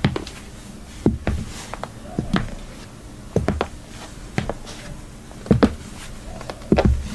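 High heels tapping on a hard floor in slow, uneven steps, about a dozen sharp clicks, some in quick pairs, over a low room hum.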